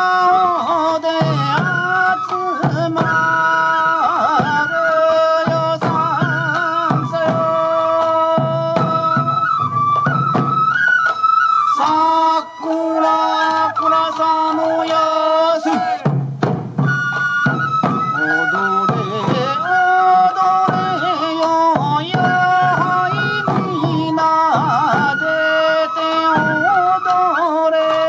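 Japanese bamboo transverse flutes (fue) playing a sansa odori melody together, over steady taiko drum beats.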